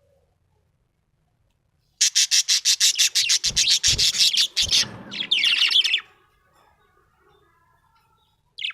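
Budgerigar chirping: starting about two seconds in, a fast run of short high chirps, about ten a second, followed by a brief warbling phrase. There are a couple of low thumps partway through the chirping.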